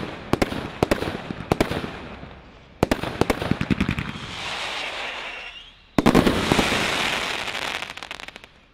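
Grand Slam GS2352GB multi-shot firework cake firing: a run of sharp bangs in the first three seconds, then a steady hiss. A loud final shot about six seconds in is followed by crackling that fades out.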